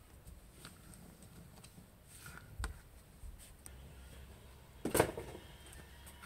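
Handling noise from an earbud and its cable being picked up and worked by hand: scattered light clicks and taps, with a sharper knock about five seconds in.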